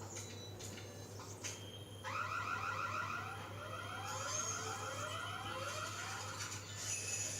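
Electronic alarm tone warbling rapidly, with a rising sweep that repeats about twice a second. It starts about two seconds in and stops shortly before the end, over a steady low hum.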